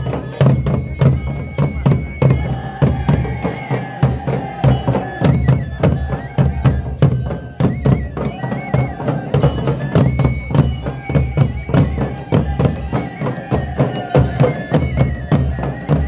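Music: a steady, fast drum beat under a long-held, wavering melody line.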